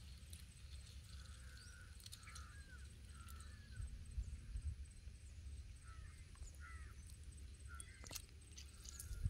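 Faint short bird calls, several of them spread through, over a low steady rumble, with a couple of faint clicks.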